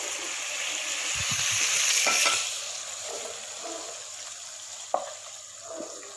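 Hot sauce sizzling in a nonstick wok just lifted off the heat, the sizzle loud for about two seconds and then dying away, while a wooden spatula scrapes chilli chicken out into a bowl. A sharp knock about five seconds in as the spatula strikes the pan.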